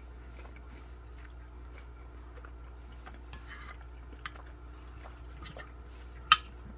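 Spoon working through gravy-soaked turkey and stuffing on a ceramic plate: faint wet sounds and small ticks, with one sharp click of the spoon against the plate about six seconds in.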